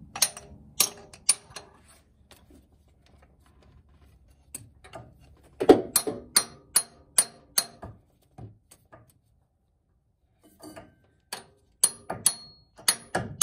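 Mallet blows on a steel pry tool, tapping a turbo adapter plate onto the exhaust manifold of a 12-valve Cummins engine. Sharp knocks with a light metallic ring, in three runs of several blows each, with short pauses between.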